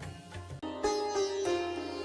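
Instrumental music: a string melody of held and repeated notes, growing louder about half a second in.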